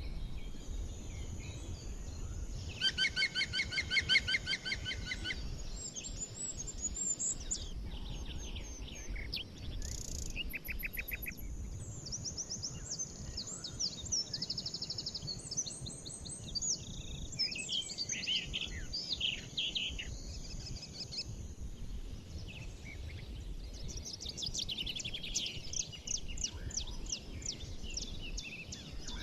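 A chorus of forest birds singing and chirping, several songs overlapping over a low background rumble. About three seconds in, a loud rapid trill of repeated notes stands out. Near the end, a dense run of quick chirps follows.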